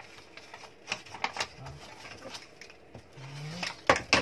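Wrapping paper crinkling and rustling in short crackles as it is folded and pressed around a small box, with a few sharp taps near the end.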